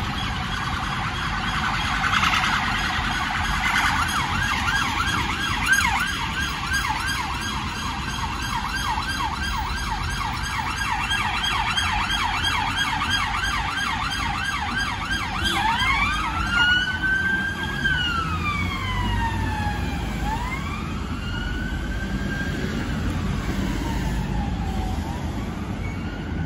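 Police vehicle sirens in a convoy of police vans. They sound a fast yelp of quick up-and-down sweeps, then switch about halfway through to a slow wail that rises and falls, over low traffic rumble.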